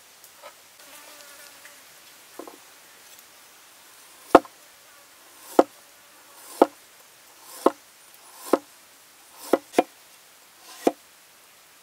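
Heavy cleaver slicing down through ginger onto a thick wooden chopping board: eight sharp knocks, roughly one a second, two of them in quick succession near the end. A faint insect buzz comes before the chopping starts.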